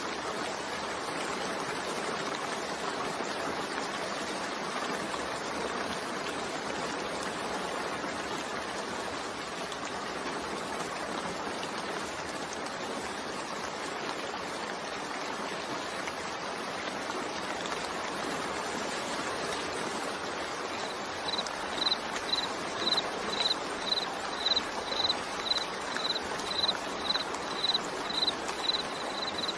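Steady rain, an even hiss. About two-thirds of the way in, a high, short chirp starts repeating, about twice a second.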